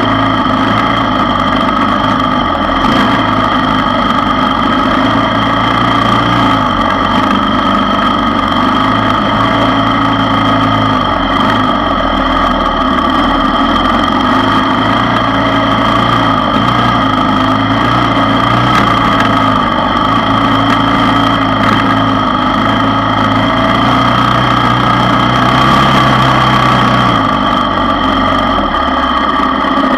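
ATV engine running steadily while the quad rides along a dirt trail, its pitch shifting slightly now and then.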